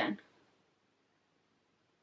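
Near silence after a woman's spoken word ends in the first moment.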